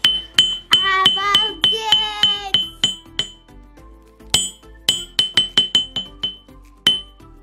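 Small hammer striking pieces of a dismantled mobile phone, its metal plate and screen glass, in rapid blows about three a second, with a short pause in the middle. Each hit gives a high, short metallic ping.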